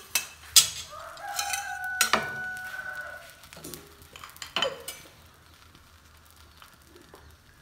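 Several sharp clinks of a ceramic serving spoon against dishes, and a rooster crowing once, starting about a second in and held for some two seconds.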